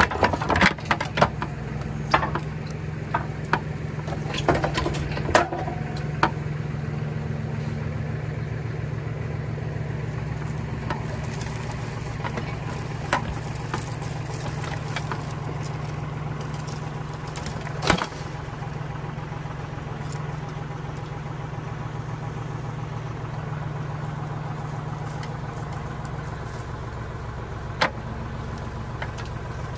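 An engine running steadily at idle, with scattered knocks and clanks in the first several seconds and a single sharp knock about 18 seconds in.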